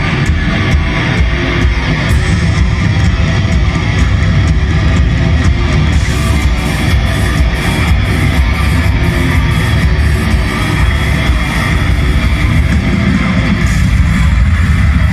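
Black metal band playing live: distorted electric guitars over a heavy low end, loud and unbroken.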